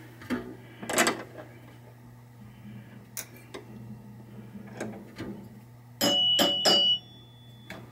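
Light knocks and clicks of handling on a pinball machine's chime box, then about six seconds in its metal chime bars are struck three times in quick succession, each ringing briefly, with one high tone ringing on after the last.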